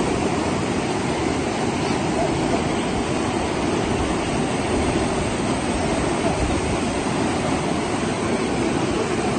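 Steady rushing of fast-flowing river water, an even noise with no breaks.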